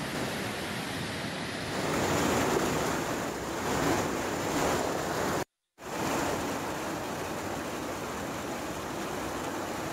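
Floodwater rushing and churning over a causeway and a weir, a steady loud wash of water noise. It is strongest in the first half and cuts out for a moment about five and a half seconds in before resuming.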